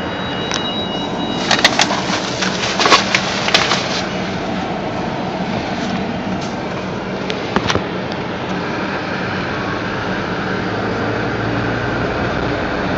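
Car engine and road noise heard inside the cabin while driving slowly. A cluster of sharp clicks and knocks comes about one and a half to four seconds in, and a single click near eight seconds.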